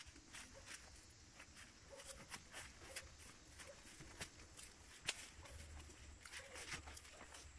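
Faint footsteps on grass, soft irregular steps about two or three a second.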